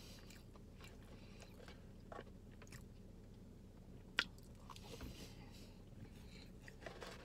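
A person eating French fries from a cardboard carton: faint chewing and small clicks, with one sharp click about four seconds in.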